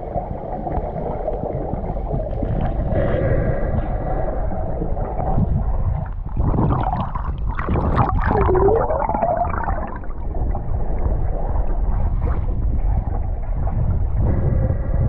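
Muffled rumbling water noise on an underwater camera in its waterproof housing as a snorkeler swims, with splashing as the camera breaks the surface about halfway through.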